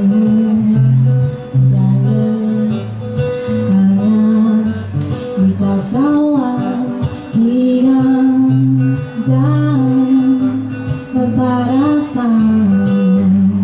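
A woman singing a slow, gentle song with long held notes that bend in pitch, accompanied by an acoustic guitar.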